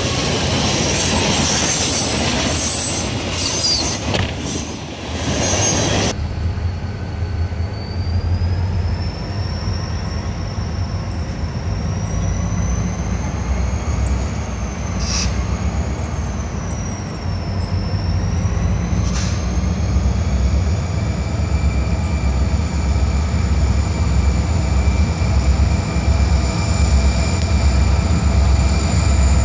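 A freight train passing close, its wheels clattering over the rail joints, until it cuts off at about six seconds. Diesel freight locomotives then approach with a steady low engine rumble, under a thin high wheel squeal that rises and falls in pitch.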